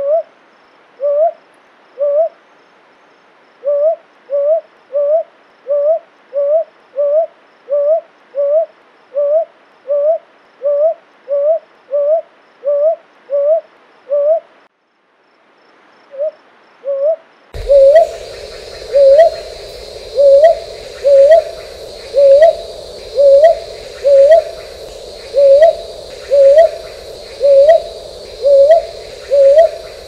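Brown hawk-owl (brown boobook) calling: a long series of short rising hoots, about two a second, with a brief pause about halfway. In the second half the hoots are louder over a steady high background hiss.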